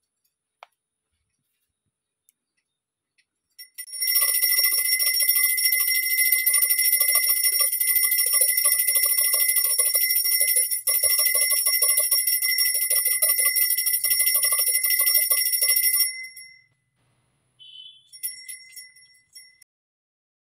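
Puja bell rung rapidly and without a break for about twelve seconds during the evening lamp offering, then stopping suddenly; it rings again briefly and more faintly near the end.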